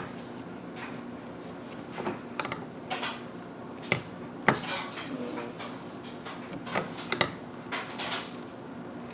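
Scissors snipping through folded paper: a series of short, sharp snips and metallic blade clicks at irregular intervals.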